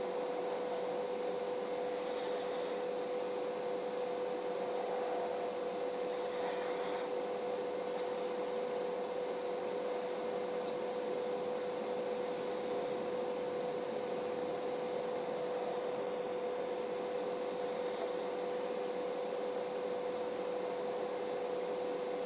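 A sleeping pet snoring: four short, hissy breaths a few seconds apart, over a steady hum.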